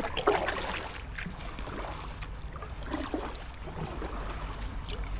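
Kayak paddle strokes dipping into calm canal water, with soft splashes and drips as an inflatable kayak is paddled along.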